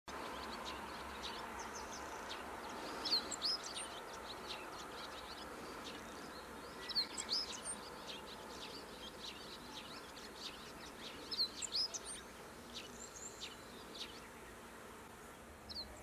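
Small birds chirping: many short, high chirps, with louder bunches of sharp calls about every four seconds, over steady background noise.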